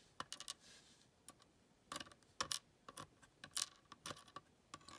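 Faint, irregular clicks and taps of small metal lock pins and parts being handled and moved about, a few louder ones in the middle.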